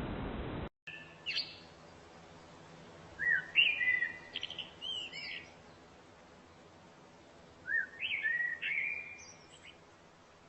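A songbird singing two phrases of sliding, whistled notes about four seconds apart, after a short single call. A steady hiss cuts off suddenly under a second in, before the song begins.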